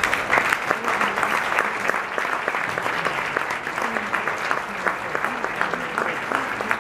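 Seated banquet audience applauding steadily, a dense sustained round of clapping that breaks out as the speech ends.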